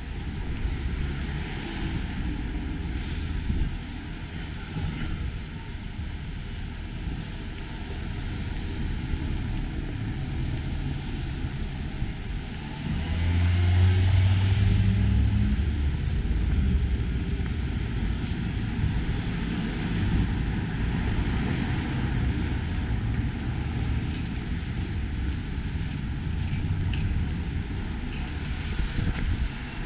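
Street traffic: a steady rumble of road vehicles passing, with a louder, deeper engine going by about 13 seconds in.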